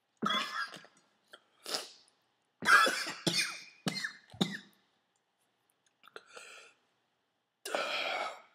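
A man coughing and clearing his throat in about six harsh bouts, loudest about three seconds in, from the burn of super-hot chile peppers.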